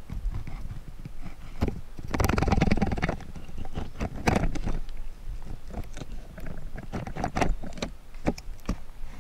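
Close rustling of clothing and gear with scattered light clicks and knocks as a hunter in a tree stand handles a haul rope and a compound bow, with a longer burst of rustling about two seconds in.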